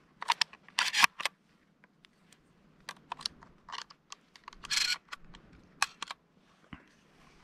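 Close handling noise from gear: irregular sharp clicks and clacks, loudest about a second in, with a short scraping rustle near the middle.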